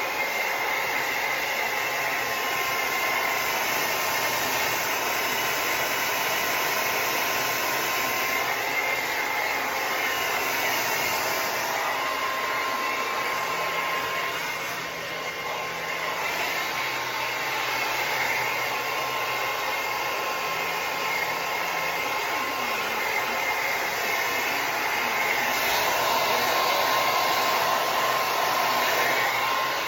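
Hair dryer running steadily with an even rush of air and a high motor whine, dipping briefly about halfway through.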